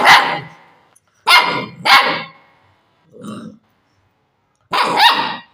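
A puppy barking in short, sharp, loud barks, some in quick pairs, with one quieter bark about three seconds in.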